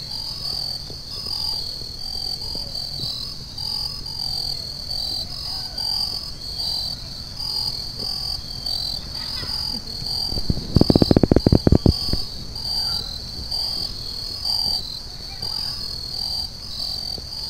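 Crickets chirping in a steady high pulsing drone, with a lower call repeating a little more than once a second over a low rumble. About eleven seconds in, a rapid run of loud crackling clicks lasts about a second.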